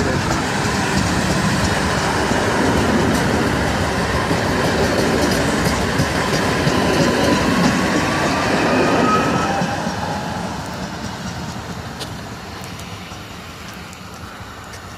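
Newag 36WEa Impuls electric multiple unit passing close at speed, its wheels rumbling and clattering on the rails, with a faint rising whine partway through. The noise fades as the train runs away, after about ten seconds.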